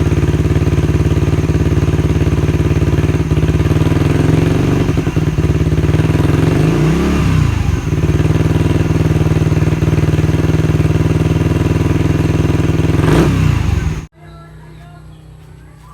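Suzuki Raider 150 Fi's single-cylinder four-stroke engine idling through a kalkal exhaust pipe, with a short rev about seven seconds in and another near the end. The sound then cuts off suddenly.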